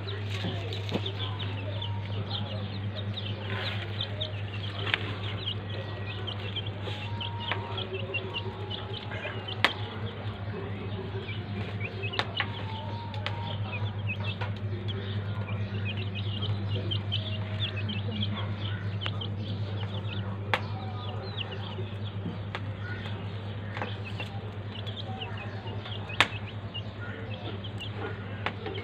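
Young chickens peeping over and over in short high chirps while they forage, over a steady low hum. A few sharp clicks stand out here and there.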